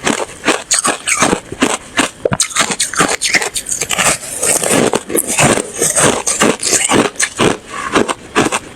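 Ice being bitten and chewed close to the microphone: a quick, continuous run of crisp crunches, several a second.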